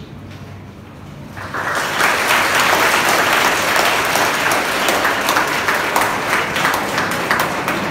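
Large audience of students applauding, many hands clapping together. It starts suddenly about a second and a half in and keeps going steadily.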